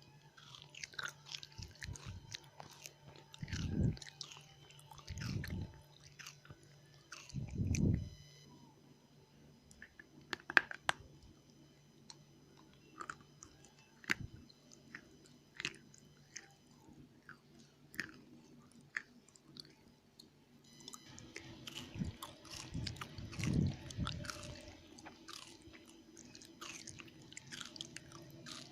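Close-up chewing of dry red Indian clay, a run of sharp crunches and crackles. A few louder low thuds come around 4, 5, 8 and 23 seconds in, and a faint steady hum sits underneath.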